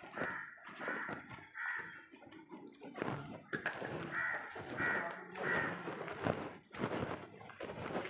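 Crow cawing: a series of short calls in two bouts, the second starting about three and a half seconds in.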